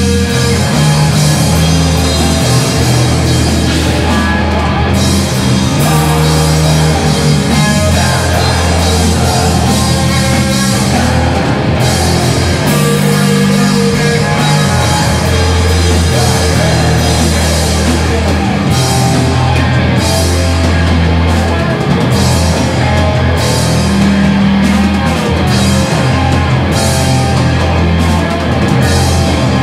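Live rock band playing loud: electric guitars over a drum kit with crashing cymbals, a dense, continuous wall of sound.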